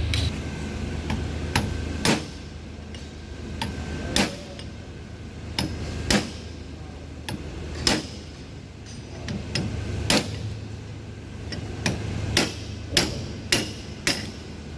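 Hammer blows on metal gearbox parts: sharp, ringing strikes about every two seconds, coming faster, four in quick succession, near the end.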